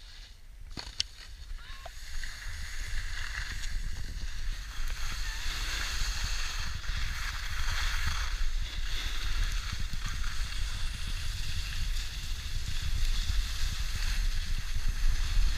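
Wind buffeting a moving action camera's microphone over the scraping hiss of skiing and snowboarding on packed snow, growing louder from about two seconds in.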